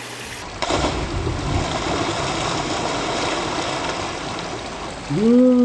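Steady rush of water from the pond's waterfalls. Near the end a person's voice draws out one long sound that rises and then slowly falls in pitch.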